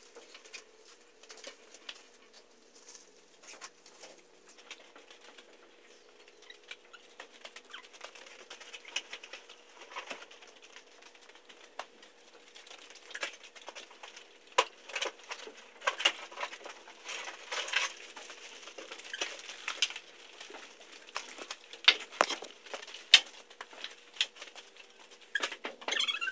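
Small plastic toy horse figures and their tack being handled: irregular light clicks and taps, sparse at first, then busier and louder about halfway through.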